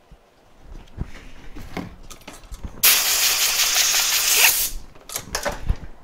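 A spray can hissing in one steady burst of about two seconds, used to clean a BGA reballing stencil. Small clicks and handling knocks come before and after it.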